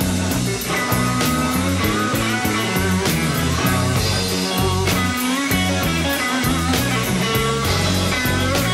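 Electric blues band playing: lead guitar with bent notes over bass and drums.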